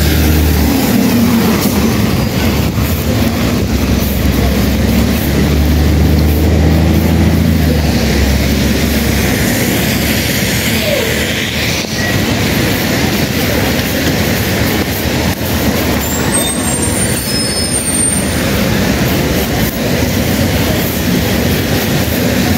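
A city bus passing close by, its diesel engine rumbling strongly for the first nine seconds or so, then fading into a steady rushing of rain, wind and traffic on wet streets.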